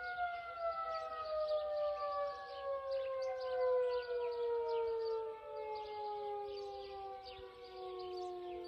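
Federal Signal 2001 outdoor warning sirens winding down: their steady tone begins to fall at the start and keeps sliding slowly lower, with the sound swelling and fading as the rotating siren heads turn.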